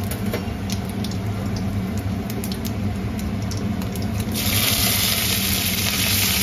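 Whole spices crackling in hot mustard oil in a kadhai, with scattered sharp pops, then a loud sizzle that starts suddenly about four seconds in as chopped green chillies hit the oil and keeps on.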